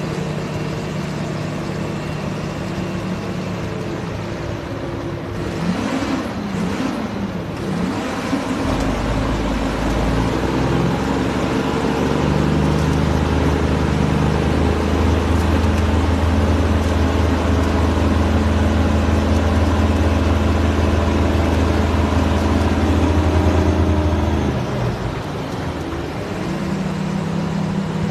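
Heavy diesel engines of a tow machine and a loaded Peterbilt log truck working under load as the truck is dragged through deep mud. The engine note rises and falls about six seconds in. From about nine seconds in it settles into a loud steady low drone, which eases off a few seconds before the end.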